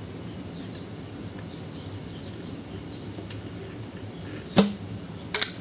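A PVC fitting set down on a table-saw top with one sharp knock about four and a half seconds in, followed by a couple of light clicks. Otherwise only a low, steady room hum.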